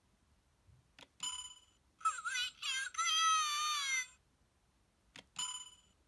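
Earth Brace toy's electronic sound unit playing back through its small speaker: a click about a second in and a short electronic tone, then about two seconds of a tinny recorded voice phrase. Another click and tone come near the end.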